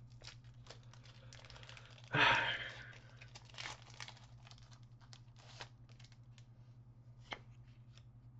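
Foil Pokémon booster pack wrapper torn open, one ripping sound about two seconds in, followed by a few faint crinkles and clicks as the wrapper and cards are handled.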